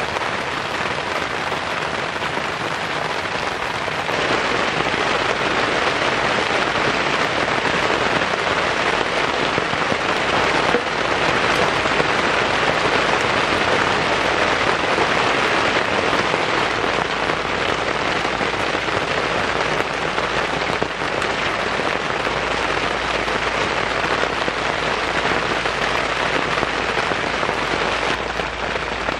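Heavy rain falling on a tent, a steady dense hiss of drops that grows louder about four seconds in.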